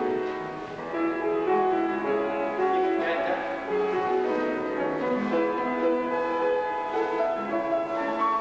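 Live solo piano playing ballet-class accompaniment: a continuous melody over chords, with no break.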